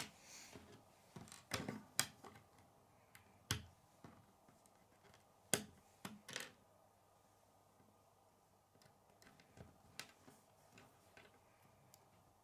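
Plastic K'nex rods and connectors clicking and knocking as they are snapped together and handled on a wooden table. The sharp clicks come irregularly, the loudest about five and a half seconds in, then grow sparser and fainter in the second half.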